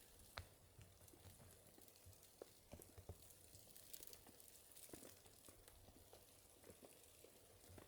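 Near silence with a few faint, irregular light ticks.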